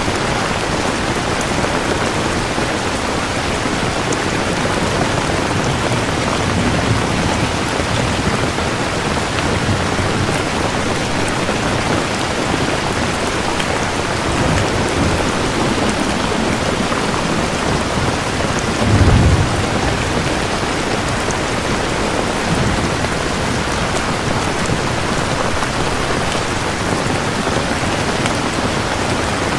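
Steady heavy rain falling, with low rolls of distant thunder a few times and one stronger thunder rumble about two-thirds of the way through.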